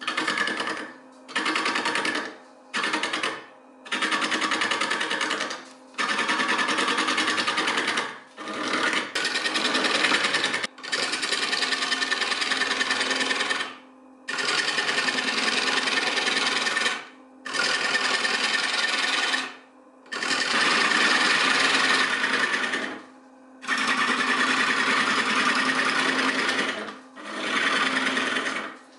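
Wood lathe turning a wooden pipe-bowl blank, a hand-held turning chisel cutting into the spinning wood in repeated passes while the bowl is rounded into a ball. The cuts come as bursts of scraping, short ones at first and then longer ones of two to three seconds. The lathe's steady hum runs between them.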